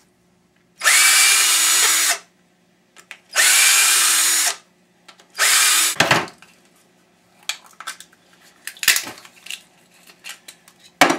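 Power drill run in three short bursts of about a second each, the motor's whine rising as it spins up at the start of each. After them come scattered light clinks and knocks of parts being handled.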